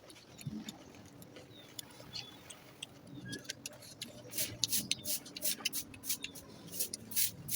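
Close-miked eating sounds: chewing with wet lip-smacking and sharp clicks, sparse at first, then denser and louder from about halfway through.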